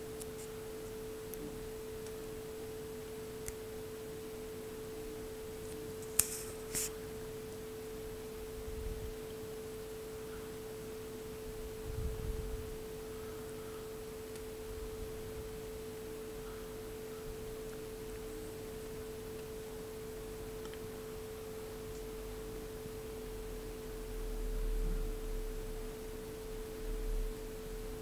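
A steady hum held at one pitch, with a fainter lower tone beneath it. A couple of sharp clicks come about six seconds in, and a few soft low bumps come later.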